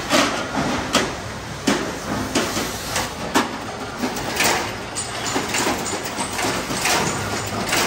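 Irregular knocking on sheet metal as a fuel tank is worked by hand, a sharp knock roughly every half second to second over steady workshop noise.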